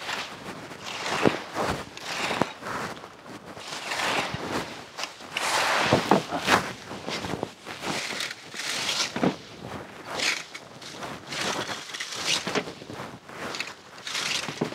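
A rake dragged through dry fallen leaves, rustling and scraping in repeated strokes about one a second, loudest around the middle.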